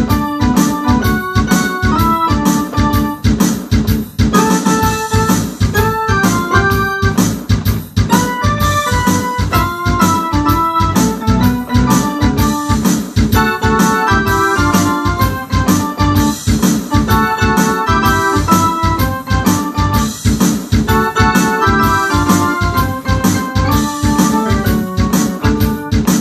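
Ensoniq SD-1 synthesizer keyboard being played: sustained chords in the low-mid range with a busy melodic line above, over a steady drum beat.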